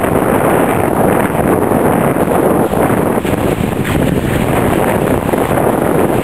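A car driving through a tunnel over a rough, unpaved rock floor: a loud, steady rumble of engine and tyres on gravel.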